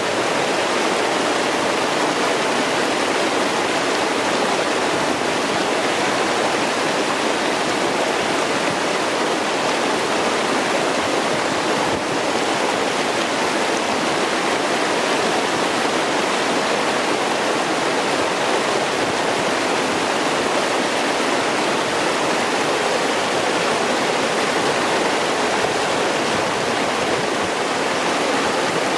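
Clear gorge stream flowing, a steady, unbroken rush of water.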